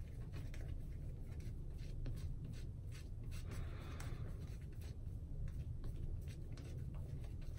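Boar-bristle shaving brush painting and working thick shaving-soap lather across a cheek: quick, soft scratchy brush strokes several times a second. A steady low hum lies underneath.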